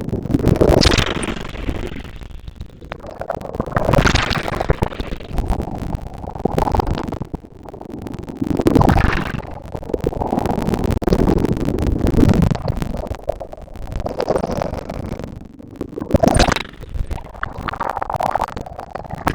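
Ocean waves breaking on a beach, one surge of surf after another every few seconds, with a low rumble underneath.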